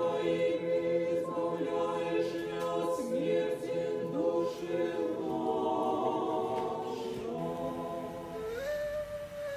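Women's choir singing Orthodox liturgical chant a cappella, several voices holding long notes in harmony. About a second before the end the harmony gives way to a single higher held note.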